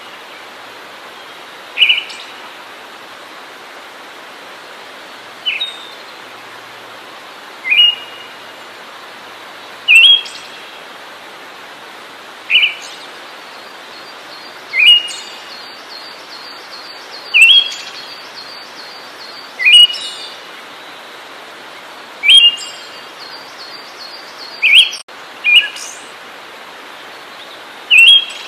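A songbird giving short, loud, sharp calls, one about every two to three seconds, over a steady hiss, with a faint rapid twittering higher up between some calls.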